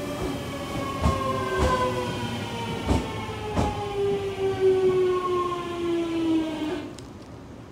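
A JR Central 383-series limited express electric train braking to a stop. Its motor whine falls steadily in pitch and cuts off as the train halts, about seven seconds in. A few wheel clacks over rail joints sound along the way.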